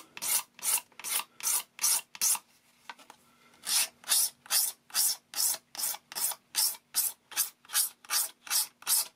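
Razor blade scraping a bevel into the edge of a plastic pickguard, in short, even strokes of about two and a half a second, with a pause of about a second some two and a half seconds in.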